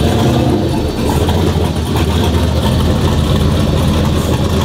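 Single-turbo Chevrolet Silverado pickup's engine running loudly with a choppy, uneven exhaust note as the truck creeps forward at low speed.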